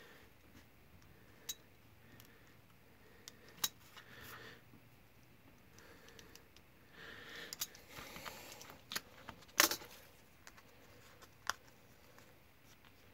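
Snap-off utility knife cutting through gasket paper on a cutting mat: short scratchy strokes with scattered sharp clicks, the loudest a little past halfway.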